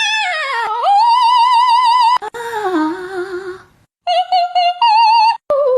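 A high singing voice holds a run of notes with a strong, wobbling vibrato, in several short phrases broken by brief gaps.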